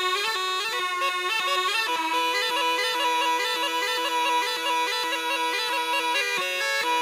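Background music on a bagpipe: a quick stepping melody over a steady drone.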